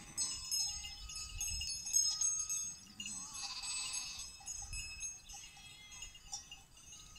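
Bells on a passing flock of goats ringing and clinking irregularly, with a bleat from the flock about three and a half seconds in.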